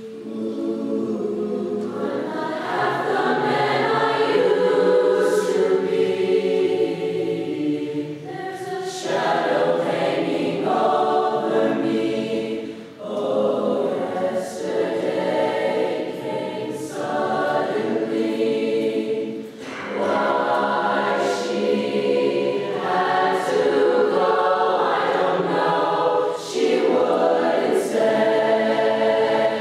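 A cappella voices singing in close harmony, sustained chords in phrases broken by short pauses every few seconds.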